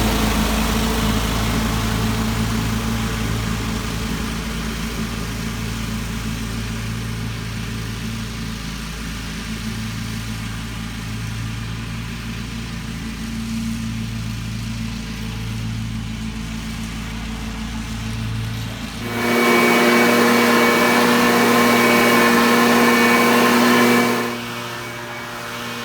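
An engine running steadily, its pitch wavering a little. About 19 seconds in it gives way abruptly to a louder, higher whining engine for about five seconds, then drops back to a quieter engine sound.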